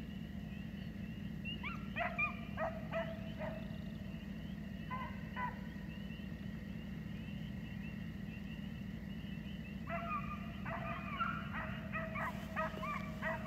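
A pack of hounds bawling in the distance as they trail a coyote, in short bursts about two seconds in and around five seconds, then more steadily from about ten seconds on. A steady low hum runs underneath.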